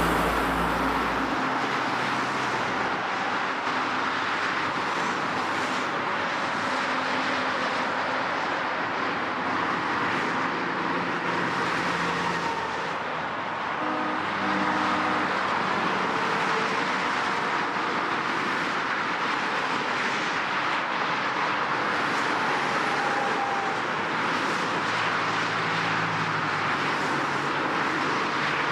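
Heavy road traffic: a steady wash of tyre and engine noise from many vehicles, with low engine hums coming and going as cars pass.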